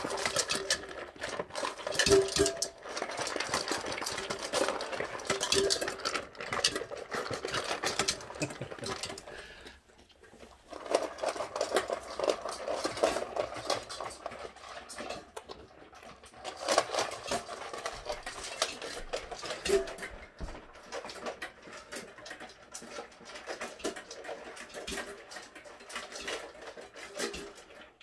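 Boxer dogs eating from stainless steel bowls, the food and metal bowls clinking and rattling in a rapid, irregular clatter, with a short lull about ten seconds in.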